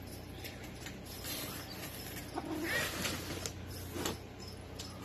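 Knife cutting through packing tape on a cardboard shipping box: scraping and creaking of the cardboard with a few sharp clicks, and a brief cat cry about three seconds in.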